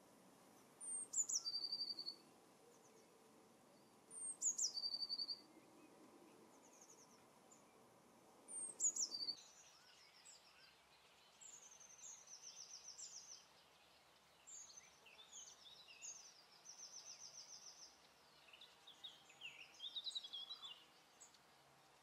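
European goldfinches: three times, a high call sweeping steeply down into a short trill, then a rapid, varied twittering song of quick tinkling notes and buzzy trills.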